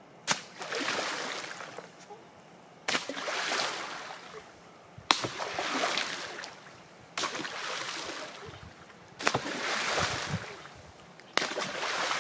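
Salmon carcasses thrown one at a time into a shallow stream, each landing with a sharp slap and a splash of water that dies away over a second or so. Six throws, about every two seconds.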